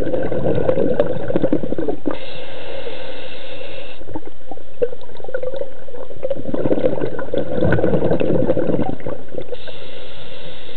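Scuba diver breathing through a regulator underwater: two bubbling exhalations, one at the start and one from about six and a half seconds, each followed by a hissing inhalation.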